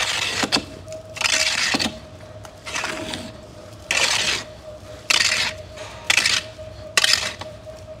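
Manure rake scraping across a concrete barn floor, pushing wet manure into the pit drop, in about seven strokes of roughly one a second.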